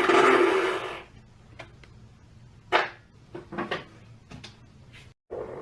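A loud fart lasting about a second, a buzzing tone that fades out, followed by a few light scattered clicks and knocks.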